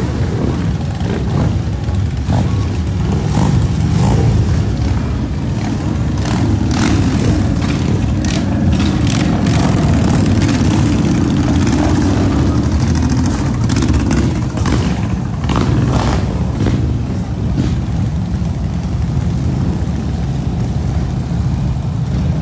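A procession of motorcycles, mostly cruisers and touring bikes, riding slowly past in a line, their engines running steadily at low speed, with short sharp sounds mixed in about the middle.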